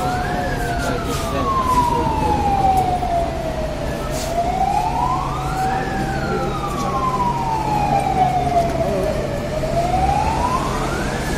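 Fire engine siren wailing in a slow cycle, climbing in about two seconds and falling away over three or four, about every five and a half seconds. A fainter second tone sounds alongside, over a steady low hum.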